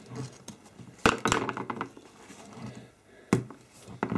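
Small metal tool and diecast model parts being handled on a tabletop, clicking and knocking: a quick cluster of clicks about a second in, a sharp knock a little past three seconds, and another near the end.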